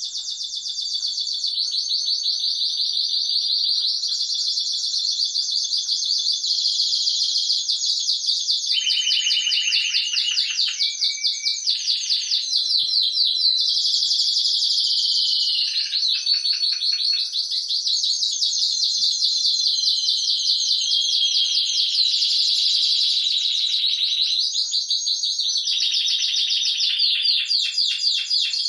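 Timbrado Español Original song canaries singing without a break: long runs of rapidly repeated high notes that shift to a new pattern every few seconds, at times with more than one bird singing at once.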